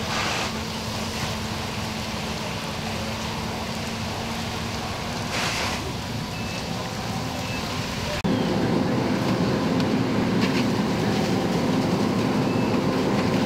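Fire engine running steadily at the pump, a constant drone under the rush of burning and spraying hose water. About eight seconds in it turns abruptly louder and fuller.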